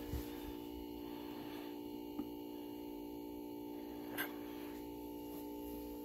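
Refrigerator compressor pumping air for a can crusher, running with a steady, quiet hum. Three light clicks come about two seconds apart.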